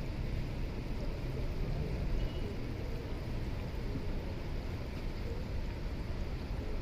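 Steady low rumble with a light hiss and no distinct events: rain falling on a flooded street, mixed with vehicle noise.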